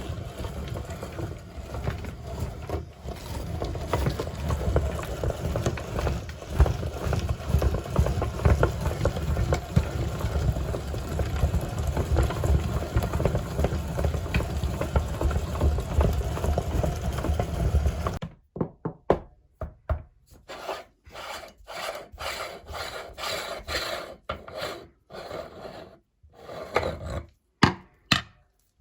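Meat grinder running, grinding ice cream with a steady rubbing, rasping noise. After about eighteen seconds it turns to short separate bursts with silent gaps between them.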